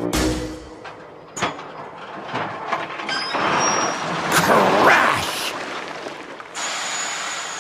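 Rock and dirt ballast pouring out of a tipped side-dump railway car: a few knocks, then a swelling rush of sliding rock about three seconds in that fades away. Near the end a steady hiss starts.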